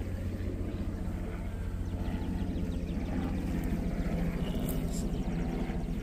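Honeybees buzzing around an opened hive: a steady, dense hum of wingbeats.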